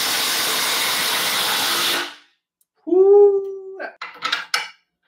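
Two brushless 1/4in impact drivers, a Cat DX71 and a Ridgid R862311, hammering long screws into a wooden beam at the same time. The hammering rattle stops about two seconds in. It is followed by a short pitched call and a few sharp clicks.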